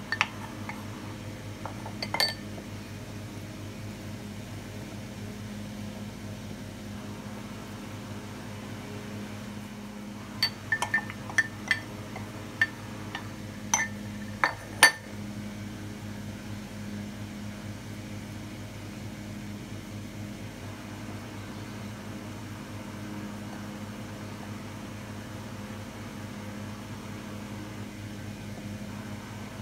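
Sharp clinks of a ceramic cup knocking against a glass mixing bowl while cornstarch is shaken out of it: two near the start, then a quick run of about eight between roughly ten and fifteen seconds in. A steady low hum runs underneath.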